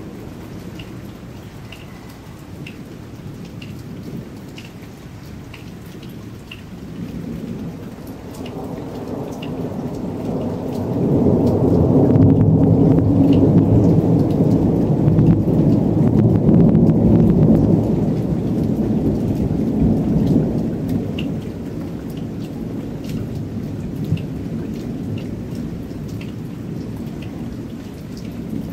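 Steady rain with a long roll of thunder. The thunder builds from about a quarter of the way in, is loudest near the middle for several seconds, then rumbles away.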